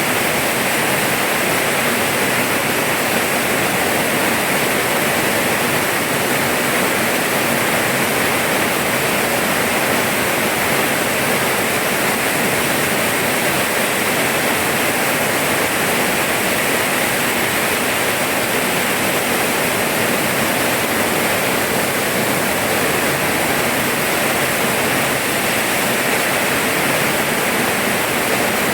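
Heavy rain falling steadily: a dense, even hiss with no single drops standing out and no change in strength.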